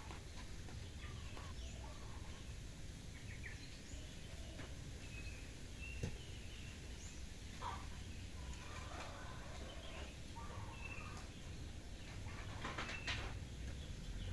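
Birds chirping in short, repeated calls over a low, steady rumble, with a few sharp clicks.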